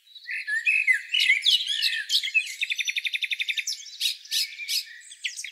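Songbirds singing, several chirping and whistled phrases overlapping, with a fast, even trill of repeated notes for about a second in the middle.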